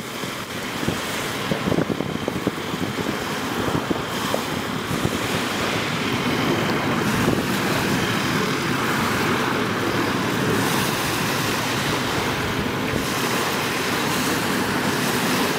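Small sea waves breaking and washing onto a pebble shore, a steady rushing wash, with wind blowing on the microphone.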